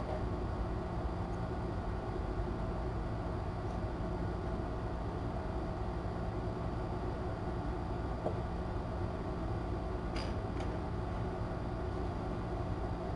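Steady low background hum and hiss of room noise, with two faint clicks about ten seconds in.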